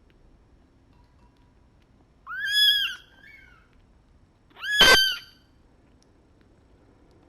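Young kitten meowing twice, high-pitched cries a couple of seconds apart, the second louder and shorter.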